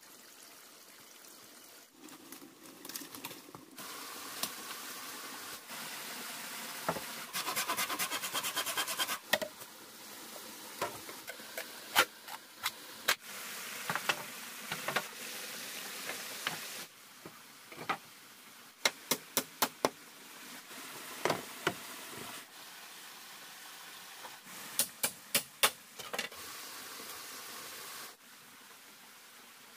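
Sharp knocks and strikes, some in quick runs of four to six, over a steady hiss of running water. The sound is cut into short pieces, and the background changes suddenly every few seconds.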